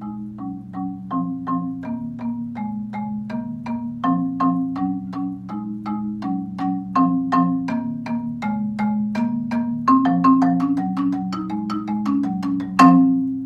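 Solo marimba played with yarn mallets: a steady run of single struck notes, about three a second, over held low notes. The notes quicken about ten seconds in and close on one loud final stroke that rings on.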